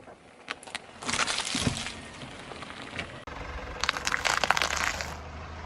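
Things cracking and crunching as they are crushed under a car's tyre, in two spells: a few sharp cracks and a short crunch in the first two seconds, then a denser run of crackling about four seconds in.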